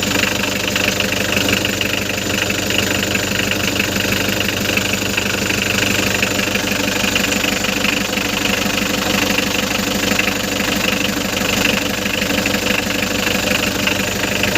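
Hyundai Grace van's engine idling steadily after starting on the first turn of the key, its hard-starting fault cured by a new fuel filter and fuel pump.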